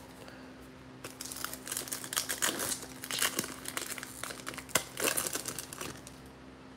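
Foil wrapper of a 2021 Panini Prizm football card pack being torn open and crinkled by hand: a run of crackling from about a second in, coming in surges and dying away shortly before the end.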